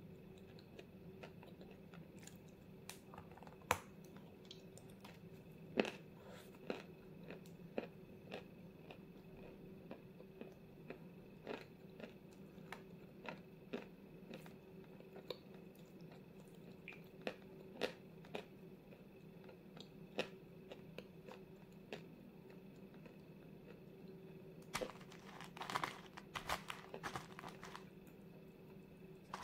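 Close-up crunching and chewing of a white chunk of 'Vasilpolye zefirka' edible chalk: sharp, separate crunches every second or two, with a quick run of bites near the end. A steady low hum lies underneath.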